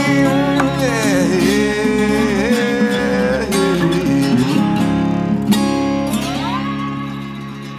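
Weissenborn Hawaiian lap steel guitar played with a slide in an acoustic blues style: sustained notes that glide in pitch over steady low bass strings. About six seconds in a note slides upward, then the strings ring out and fade.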